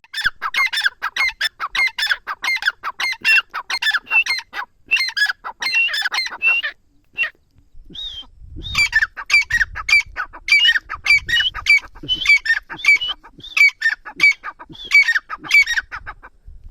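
Grey francolin (bhura teetar) calling: a fast run of loud, evenly repeated notes, then a short pause about seven seconds in, then a second long run of calls.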